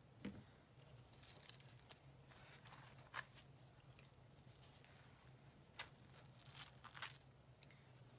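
Quiet handling of a Chalk Couture adhesive transfer, a thin plastic stencil, as it is lifted and peeled off a paper tag: a few short crackles and ticks, the sharpest about three and six seconds in, over a low steady hum.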